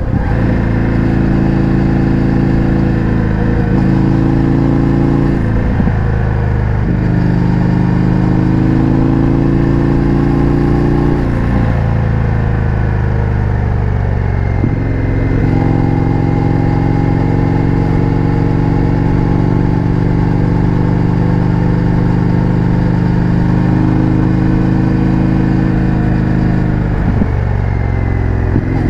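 Indian FTR 1200's V-twin engine through an Akrapovic exhaust, running steadily while the bike cruises. Its pitch holds for several seconds at a time, then steps down and back up a few times.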